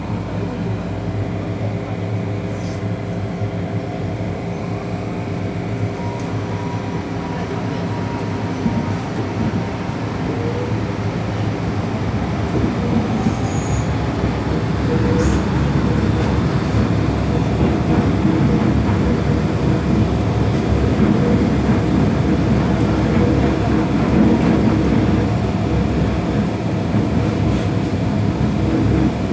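Interior of an MTR M-train electric multiple unit pulling out of a station and gathering speed: steady motor tones over wheel and track rumble, growing louder from about halfway through as the train speeds up.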